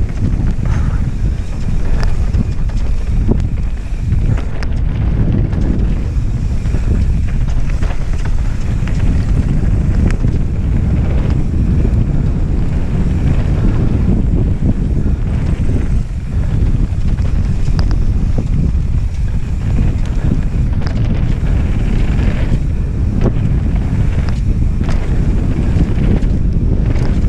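Wind buffeting a helmet-mounted camera's microphone on a fast mountain-bike descent, a steady heavy rumble, mixed with scattered clicks and rattles from the bike going over a rough dirt trail.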